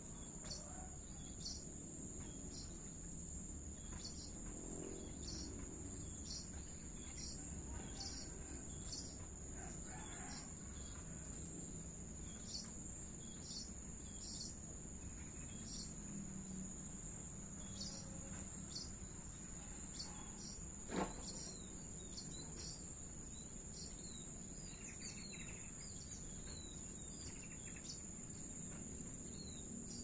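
Backyard ambience: crickets keep up a steady high trill while small birds chirp short notes over and over, above a faint low hum of distant traffic. About two-thirds of the way through, a single sharp knock is the loudest sound.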